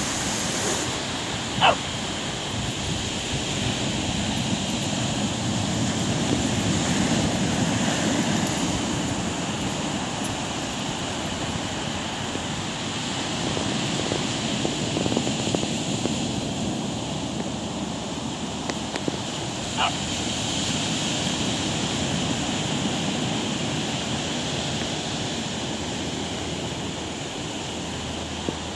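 Steady rush of ocean surf breaking on the beach, mixed with wind on the microphone. Two short sharp sounds cut through, about two seconds in and again about twenty seconds in.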